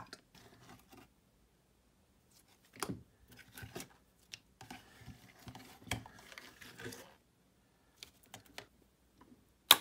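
Thick Cra-Z-Art Nickelodeon slime being pulled from its tub and stretched in the hands, giving scattered soft clicks and crackles, with a sharp, loud click just before the end.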